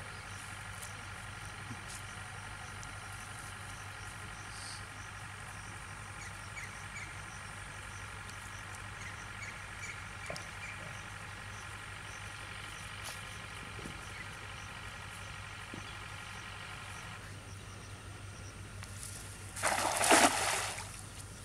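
A steady droning hum that stops about three seconds before a cast net lands on the water with a brief, loud splash near the end.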